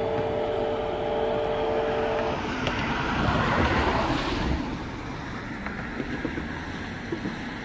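A distant steam locomotive's chime whistle holds a steady three-note chord and then cuts off about two seconds in. A rush of noise then swells and fades, leaving a low steady rumble.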